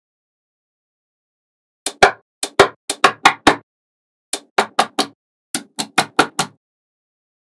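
Small magnetic balls snapping onto one another: sharp clicks starting about two seconds in, in three quick runs of about eight, four and five clicks.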